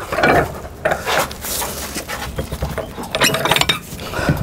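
Metal clinks and taps of a gimbal bearing installer tool being worked on the bearing in a stern-drive gimbal housing, with a quick run of clinks a little past three seconds, mixed with a man's heavy breathing from the effort.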